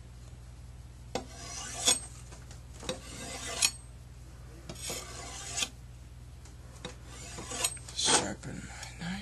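A series of rasping, rubbing noises, each under a second long, coming about every two seconds and closer together near the end.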